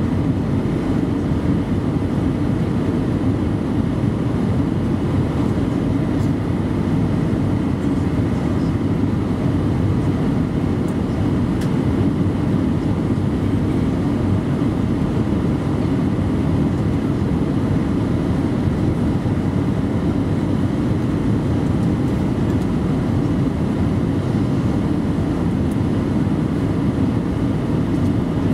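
Cabin noise inside an Airbus A319-112 in flight, heard from a window seat over the wing: its CFM56 engines and the air rushing past the fuselage make a deep, even rumble that holds steady without any change in pitch or level.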